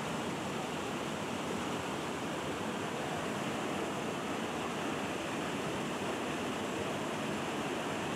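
A river rushing steadily over rocks.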